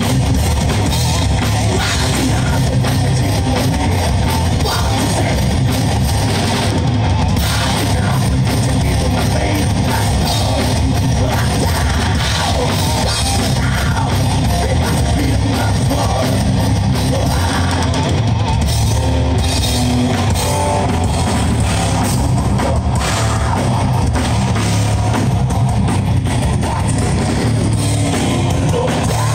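Live heavy metal band playing loud: distorted electric guitars and a pounding drum kit, with no break in the music.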